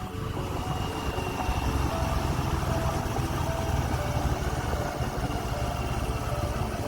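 TVS Raider 125's single-cylinder engine running steadily while riding, a dense low rumble with wind and road noise on the microphone.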